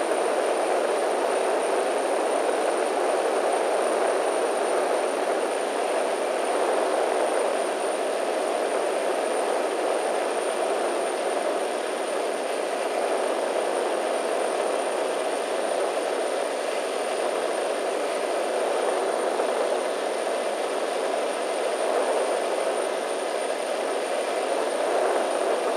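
Cessna 208B Caravan's Pratt & Whitney PT6A turboprop and propeller running steadily in cruise, heard inside the cockpit as an even drone with a thin, steady high whine above it.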